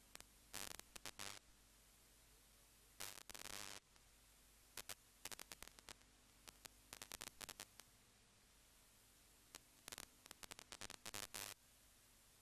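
Near silence: faint steady hiss broken by scattered sharp static clicks, with two short bursts of crackle, one about half a second in and one about three seconds in.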